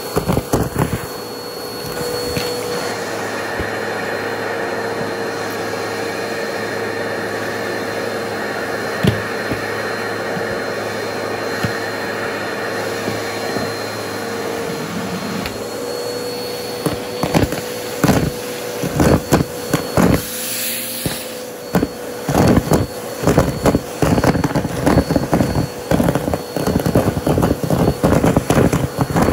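Bissell CleanView upright vacuum running through its hose, which has a plastic cup as a nozzle: a steady motor hum with a high whine. About halfway through, rapid crackling and clattering starts as styrofoam pieces and deflated balloons are sucked up into the hose.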